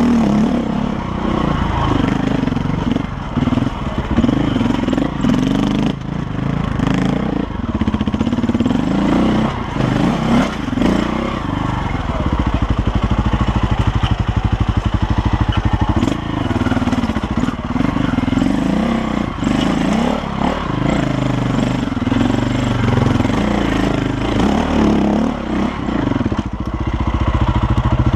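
KTM dirt bike engine running under throttle, its pitch rising and falling as the rider blips and eases off over rocks. About twelve seconds in it holds a steady low note for a few seconds before revving up and down again.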